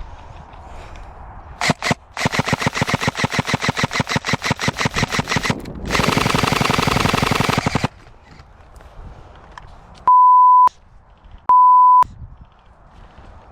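Airsoft gun firing: two quick shots, then a rapid string of shots at about nine a second, then a faster continuous full-auto burst that cuts off after about two seconds. Near the end come two short, steady electronic beeps, dubbed over the sound track.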